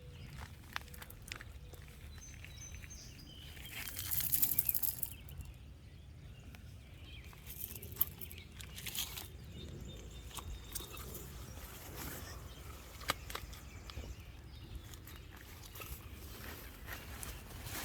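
Outdoor ambience: a steady low rumble of wind on the microphone, with scattered light clicks and rustles and a louder rustling burst about four seconds in.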